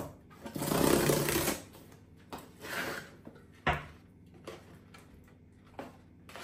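Cardboard shipping box being torn open along its tear strip: a ripping rasp about a second long near the start, then the lid flap lifted with scattered cardboard scrapes and a sharp tap.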